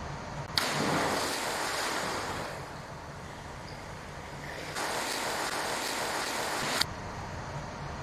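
A person diving into a swimming pool: a sudden splash about half a second in, then water churning and fading away. A second stretch of splashing starts near five seconds and cuts off suddenly just before seven seconds.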